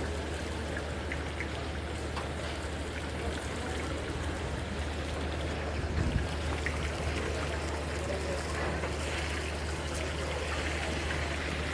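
Beef chapli kababs deep-frying in a wide pan of hot oil: steady sizzling and bubbling with small scattered crackles, over a low steady hum. A brief bump about halfway through.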